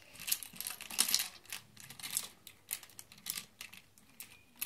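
Small makeup items being handled and rummaged through: irregular light clicks and taps with short rustling scrapes.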